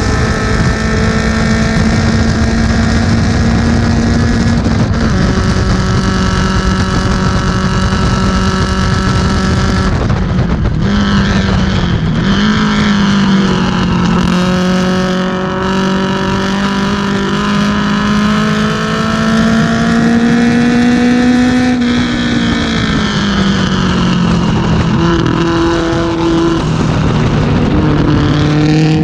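1970 BMW 2002 race car's four-cylinder engine running hard, heard from inside the car. The pitch holds steady, breaks and changes about ten to twelve seconds in, climbs slowly, falls around twenty-two to twenty-four seconds in, then climbs again near the end, as the driver lifts, shifts and accelerates around the track.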